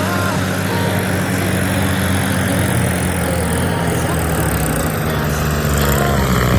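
Combine harvester engine running steadily with a low hum, growing slightly louder near the end.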